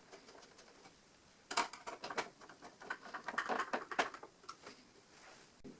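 Handling noise: a quick flurry of light clicks and taps from about one and a half seconds in to about four and a half seconds in, then a few faint taps.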